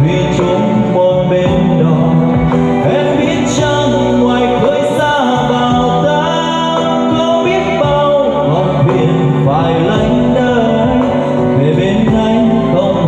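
A man singing into a handheld microphone over instrumental backing music, amplified through a PA sound system.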